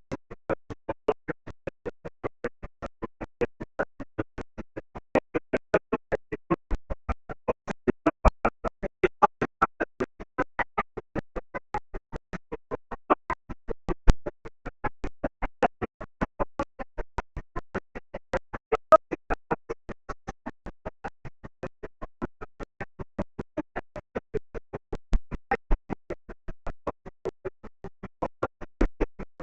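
Live band music with keyboard prominent, warming up before a gig, the sound broken into rapid even pulses about three a second as the camera's microphone fails to cope with the loud volume.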